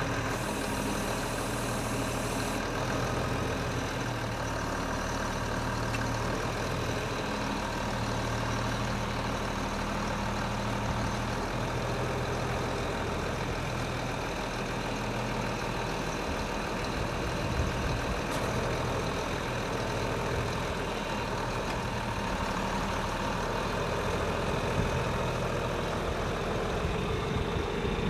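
Tractor engine idling steadily, with no change in speed.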